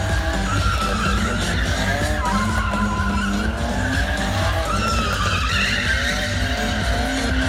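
Stunt vehicle engine revving while its tyres squeal in drawn-out, wavering skids, over loud background music.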